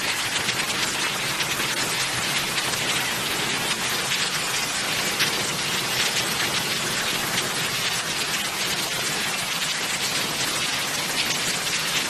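Steady, even hiss of falling rain, unbroken throughout.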